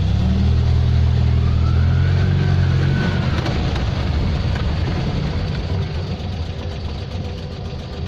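An Invacar Model 70's Steyr-Puch air-cooled flat-twin engine heard from inside the cabin, pulling the car along for about three seconds and then easing off. It sounds much quieter with the engine cover refitted, and a faint whine rises and falls in pitch in the middle.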